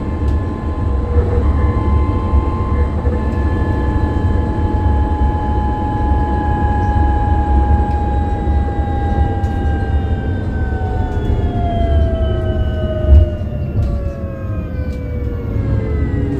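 Electric drive motor of a MAN Lion's City 12E bus whining at a steady pitch, then falling in pitch over the last several seconds as the bus slows, over a low rumble of road and body noise. A single thump about three-quarters of the way through.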